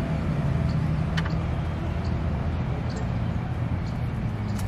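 Outdoor ambience: a steady low rumble with a few faint ticks and one brief high chirp about a second in.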